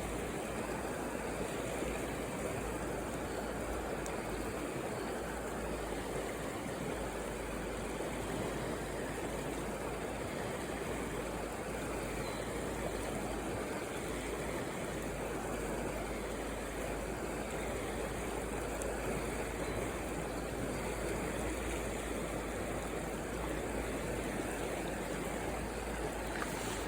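Mountain stream water rushing, a steady, unbroken flow.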